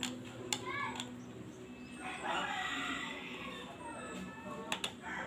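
A rooster crowing, a harsh call about two seconds in, over a few sharp clicks of a screwdriver turning a small screw into a metal bracket near the start and again near the end.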